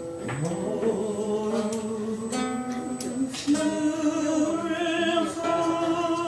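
A song sung to guitar accompaniment, the voice holding long notes over plucked and strummed strings.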